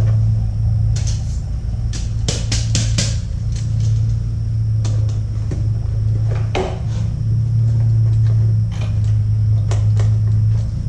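Hard plastic parts of a Dyson vacuum's brush bar clicking and knocking as they are handled and fitted together by hand, a quick run of clicks about two seconds in and single knocks after, over a steady low hum.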